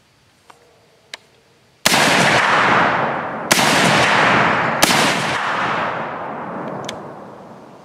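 Palmetto State Armory .308 semi-automatic AR-type rifle firing three shots about a second and a half apart, each with a long echo fading away; the rifle cycles and ejects each round. Two faint clicks come before the first shot.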